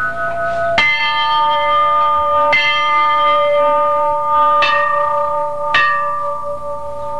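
Large bell struck four times, a second or two apart, each strike's ringing carrying on into the next.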